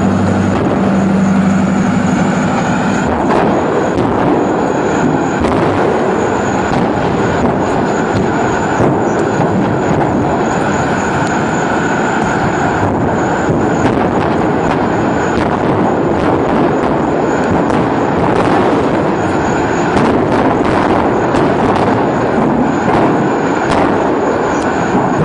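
Large gas and propane fire burning with a steady loud roar, broken by scattered sharp pops and crackles. A low steady hum sounds under it for the first three seconds.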